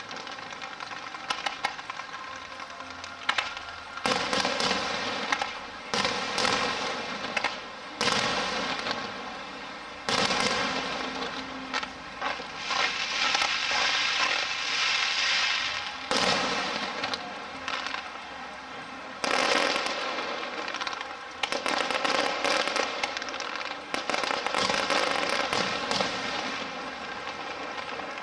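Aerial fireworks going off in a string of sudden bursts, about every two seconds at first. Each burst is followed by a second or two of dense crackling from crackle-effect shells.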